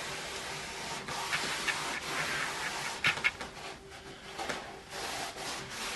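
A metal socket rubbed firmly along peel-and-stick wood veneer to press it onto a window sill: a dry, scratchy rubbing in strokes, with a couple of sharp clicks about three seconds in.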